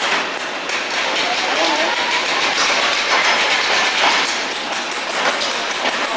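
Pretzel dark ride car travelling and spinning along its floor track, its wheels and drive making a steady mechanical running noise.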